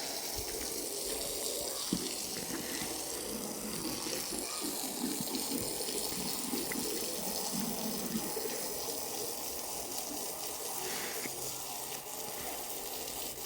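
Water running steadily from a tap and splashing, with a few light knocks.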